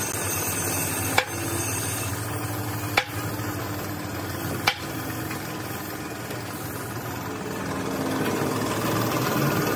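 Steady machine noise with a faint hum, broken by three sharp clicks: about a second in, about three seconds in, and just under five seconds in.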